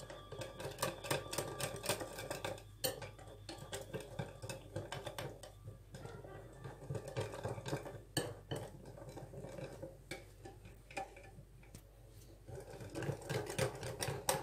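Wire whisk stirring chopped dark chocolate into hot cream in a ceramic bowl, its wires clicking and scraping quickly and unevenly against the bowl as the chocolate melts.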